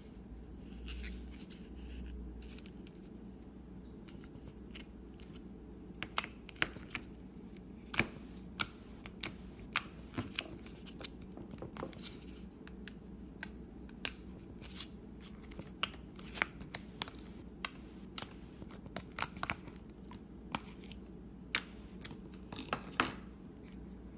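Slime being handled, giving sharp, irregular clicks and pops about once or twice a second after a quiet opening of a few seconds.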